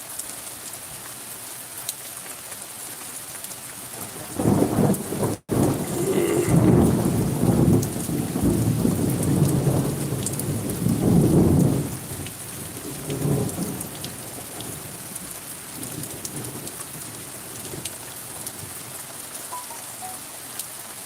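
Rain falling steadily, with a long rolling rumble of thunder starting about four seconds in and lasting some eight seconds, then a shorter, fainter rumble after it.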